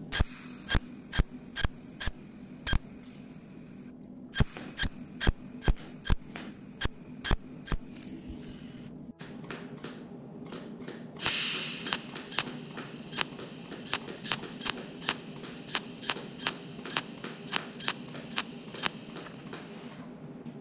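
Cold welding machine firing pulse after pulse, sharp clicks about two a second over a steady low hum, with two short pauses.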